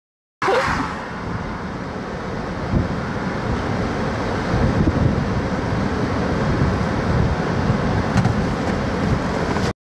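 Wind on the microphone, a rumbling rush with no steady pitch that rises and falls in gusts. It cuts in suddenly just after the start and cuts off abruptly near the end.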